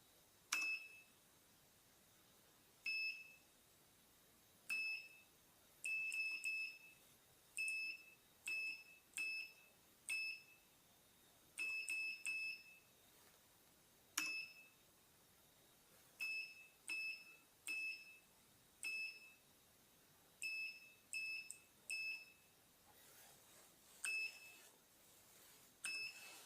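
Short, high electronic beeps, each opening with a faint key click, repeated irregularly many times and sometimes in quick runs of two or three: keys pressed on a Cherry MX switch control panel, with the AWC 608 DSP laser controller beeping to acknowledge each press.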